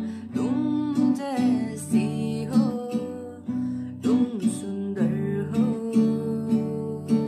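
Background music: a Hindi song with strummed acoustic guitar and a voice singing a gliding, drawn-out line.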